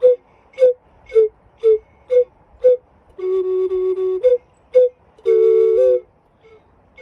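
Ocarina playing a slow melody: six short detached notes about half a second apart, then a held lower note, two more short notes and a second held note that ends near the close.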